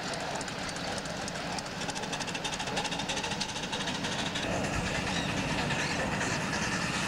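A ride-on miniature live-steam train passing close by on its track, with a steady rapid clatter of wheels and running gear on the rails.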